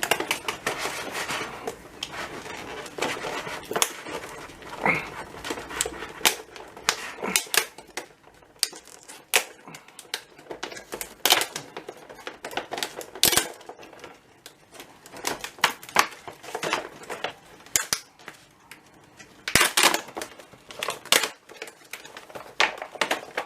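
Product packaging being opened and unpacked by hand: irregular clicks, taps and rustling as the parts of a cordless drill kit are taken out.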